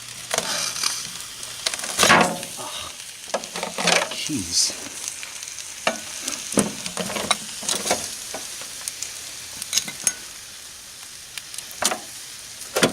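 Irregular scraping, crackling and knocks as a melted, fire-burnt plastic alarm clock is pried out of a burnt-out microwave oven, with louder clunks about two seconds in and near the end.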